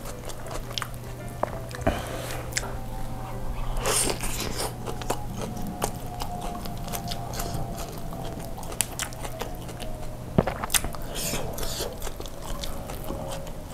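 Close-miked chewing and wet mouth sounds from eating a Turkish chicken kebab, with crackly clicks as the sauce-soaked wrap is torn and handled, and music underneath.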